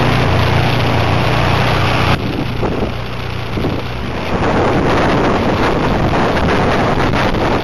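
Tecnam P2002 Sierra's Rotax 912 engine and propeller running steadily as the light aircraft taxis, with an abrupt drop in sound about two seconds in. From about four seconds in it grows louder again, with heavy wind buffeting on the microphone.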